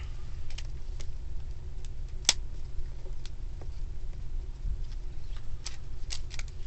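Hard plastic parts of a Plesio Charge Megazord action figure clicking and scraping as the thighs are forced into the side skirt. Scattered light clicks, the sharpest about two seconds in and a quick run of clicks near the end, over a steady low hum.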